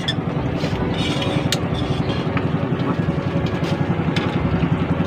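A small engine running steadily at a constant speed, with a few light clinks of spoons on dishes.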